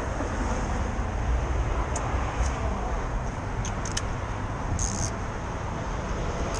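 Steady city street background with a low traffic rumble, broken by a few faint clicks around two to four seconds in and a brief high hiss about five seconds in.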